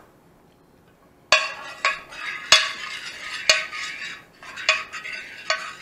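A metal measuring cup scraping and knocking against the bottom of a glass baking dish as sauce is spread around, with several sharp clinks that ring briefly. It starts about a second in.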